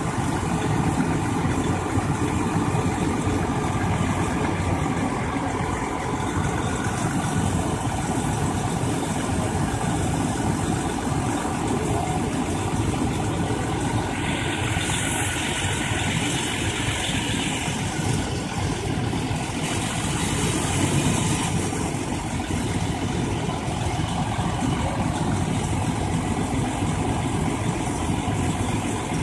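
Fire engine's engine running steadily at the kerb, a low even drone with no change in speed. A hiss rises over it for a few seconds about halfway through.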